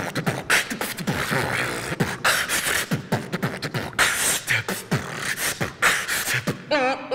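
Beatboxing: a fast rhythmic beat of mouth-made kick drums, snares and hi-hats, done with a hand cupped over the mouth. Near the end a wavering, siren-like pitched tone sets in and then holds steady.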